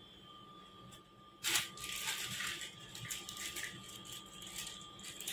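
A sharp plastic clack about one and a half seconds in, then a clear plastic bag crinkling and rustling as a hand rummages in it for plastic toy pieces.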